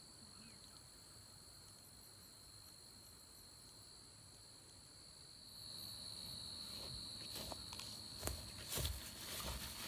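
Steady, faint, high-pitched insect chorus in a grassy field, a whir holding at two pitches. From about seven seconds in, footsteps crunch through the grass toward the microphone, with a few close thumps and rustles.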